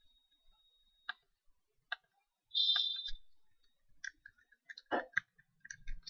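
Computer mouse clicks and keyboard typing: a few single mouse clicks, then a quick run of keystrokes in the last two seconds. A brief high buzz comes about two and a half seconds in and is the loudest sound.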